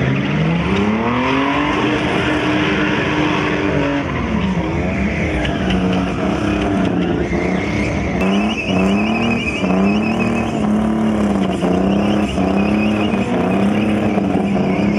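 Drift cars' engines revving hard while they slide sideways, with tyres screeching. The revs climb about a second in and hold high, then swing up and down repeatedly in the second half as the throttle is worked through the slide.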